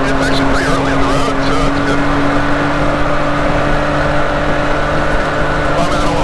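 Can-Am Maverick X3 side-by-side under way at a steady speed. Its turbocharged three-cylinder engine runs at an even, unchanging pitch over a constant rush of tyre and wind noise.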